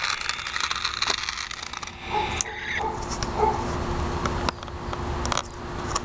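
Small electric motor of a toy remote-control car whirring, with its wheels rattling on concrete, for about two seconds; then the noise drops away to quieter sounds with a few scattered clicks.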